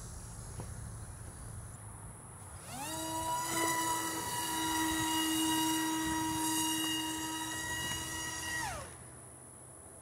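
Twin-boom foam-board RC plane's electric motor and propeller spooling up about three seconds in, holding a steady high-pitched whine for about six seconds, then winding down and stopping near the end.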